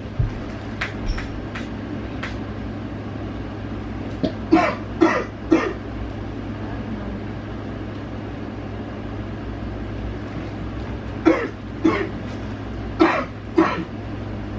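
A man's deliberately faked coughing: a bout of three sharp coughs about four and a half seconds in, then four more near the end. A steady low hum runs underneath.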